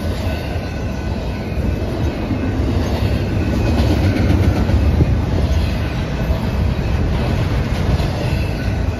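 A double-stack intermodal freight train's cars rolling past close by: steel wheels on the rails in a steady, loud rumble.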